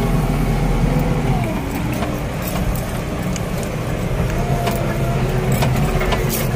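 JCB backhoe loader's diesel engine running steadily while the machine drives along, heard from the cab, with a few sharp clicks near the end.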